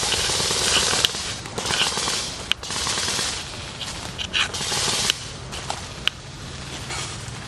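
Airsoft rifles firing in bursts of rapid fire, each lasting a second or two, with a few sharp single shots among them. The firing dies down over the last couple of seconds.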